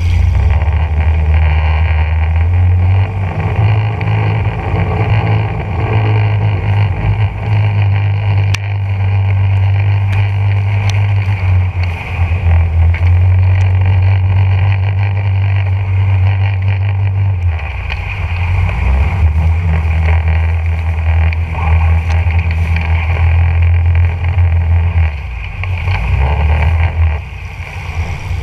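Small boat's motor running hard as the boat pushes through marsh grass. Its note holds steady, then drops and picks back up a few times in the second half as the throttle is eased and reopened.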